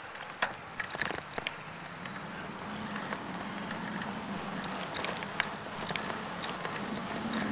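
A bicycle riding off on pavement: a few sharp clicks and rattles in the first second and a half, then a steady road and wind hum that slowly grows louder as it picks up speed.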